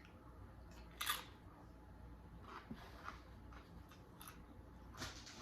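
A few faint, short crunches and clicks of eating nacho tortilla chips, the clearest about a second in.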